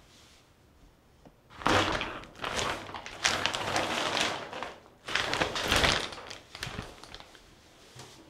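Clear plastic sheet crinkling and rustling as it is handled, in several loud spells from a little under two seconds in until about six seconds in.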